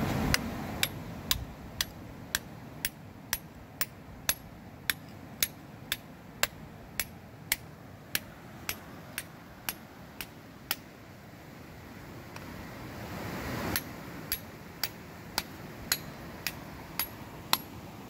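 Hammer striking a steel chisel held against a quartz vein, chipping at the rock around a feldspar crystal: sharp metallic strikes about two a second. The strikes stop for about three seconds some two-thirds of the way through, then resume.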